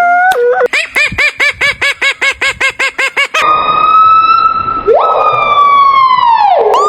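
Siren-like wail: a fast yelping warble, about eight rises and falls a second, for roughly three seconds, then a long held tone that slowly slides down in pitch.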